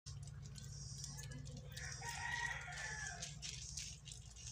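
A rooster crows once, starting about two seconds in and lasting over a second, over a steady low hum. Light clicking from puppies eating kibble runs under it.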